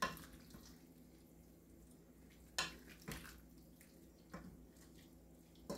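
Wooden spoon stirring stew with pasta in an enamel pot: faint wet stirring with a few soft knocks of the spoon against the pot.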